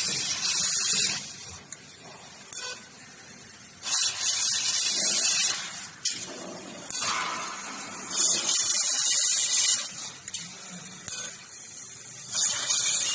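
Laser cutting, cleaning and welding machine firing in four bursts a few seconds apart, each a high hiss lasting one to two seconds.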